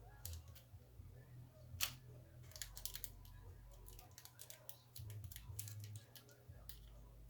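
Light clicks and taps of small hobby-grade parts being handled on a workbench, with one sharper click about two seconds in.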